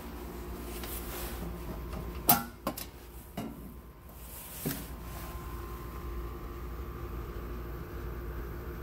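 Metal door of a residential breaker panel being unlatched and swung open: one sharp click, followed by a few lighter clicks and knocks over the next two seconds, over a steady low hum.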